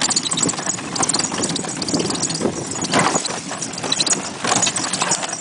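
Pony's hooves clip-clopping on a sandy dirt track as it pulls a horse cart, with the cart and harness rattling along.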